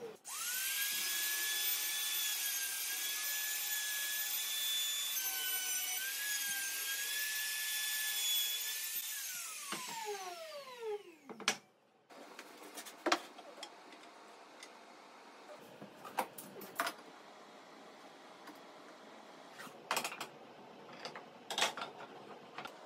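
A compact trim router spins up and runs with a steady high whine while routing wood, its pitch dipping briefly about halfway through the run. It is switched off about nine seconds in and winds down in a falling whine, followed by scattered knocks and clicks of tools and wooden boards being handled.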